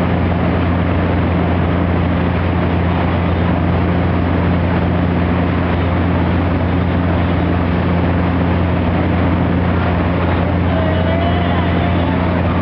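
Towboat's engine running steadily under way, a deep even drone, with the rushing hiss of the churning wake and spray behind the boat.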